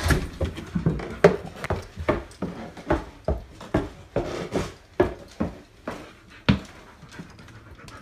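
A dog panting in quick, uneven breaths close to the microphone.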